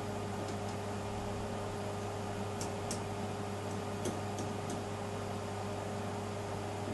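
Steady low hum with a handful of light metallic clicks and taps, a few seconds in, as small metal parts of a homemade model steam boiler are handled.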